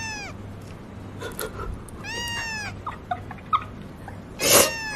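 Domestic cat meowing three times, about two seconds apart. Each call rises and then falls in pitch, and the last, near the end, is the loudest and harshest.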